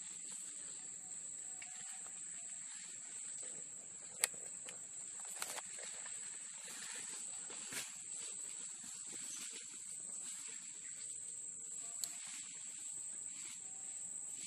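Insects in the undergrowth keeping up a steady high-pitched buzz, with a few sharp clicks scattered through it, the loudest about four seconds in.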